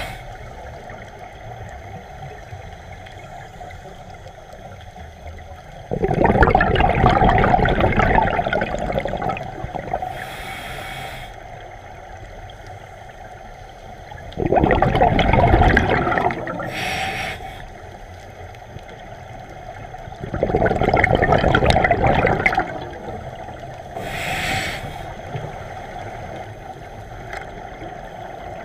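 Scuba regulator breathing heard underwater: three long gurgling rushes of exhaled bubbles, each lasting two to three seconds, alternating with shorter, higher-pitched hissing inhalations through the regulator, in a slow, regular breathing rhythm.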